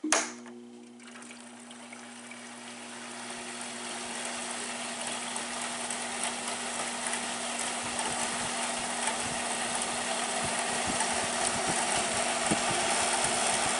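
Arctic King WWK05CM71N window air conditioner switched on to low fan: a click at switch-on, then the fan motor's steady hum and rushing air that grows steadily louder as the fan spins up.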